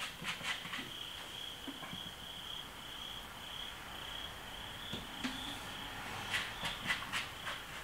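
Scattered clicks and light knocks of a tubeless tire being worked on its rim as the bead is broken, clustered near the start and again in the last few seconds. A steady, high, faintly pulsing tone runs underneath.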